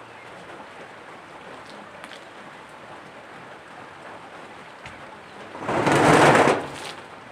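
Steady rain hiss, then near the end a loud rush of water lasting about a second as a basin of water is tipped over a person bathing in the rain.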